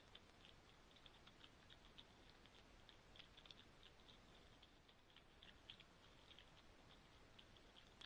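Faint chirping of night insects: short, high ticks, several a second at an uneven pace, over near silence.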